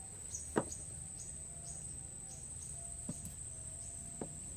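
Outdoor insect chorus: a steady high-pitched insect drone, with short high chirps repeating about twice a second. Three sharp clicks stand out, the loudest about half a second in.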